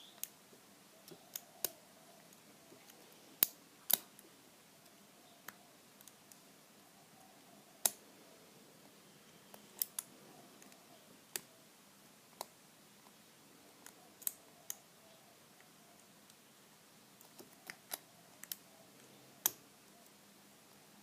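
Irregular, sparse metallic clicks of a lock pick and tension wrench working the pin stack of an all-brass round padlock. A few clicks are much louder than the rest, around three and a half, four and eight seconds in and again near the end.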